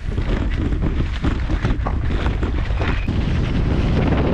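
Wind buffeting the microphone as a loud, constant low rumble, with a steady run of short knocks and clatters on top.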